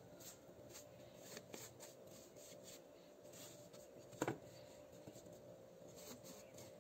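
Faint soft scraping and rubbing as fingers wipe wet, muddy soil out of a plastic sieve cup into a metal saucepan, with one light tap about four seconds in.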